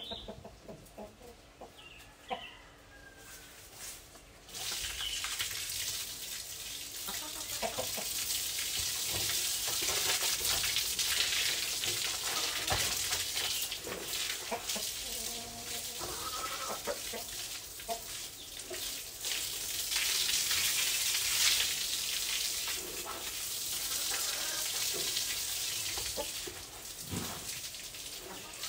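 Chickens clucking over a steady hiss that starts about four seconds in and carries on throughout.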